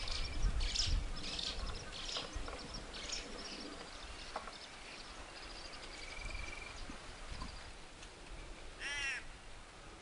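Wild birds calling: a quick series of short, high calls over the first few seconds, then one louder call with a rising-and-falling pitch near the end.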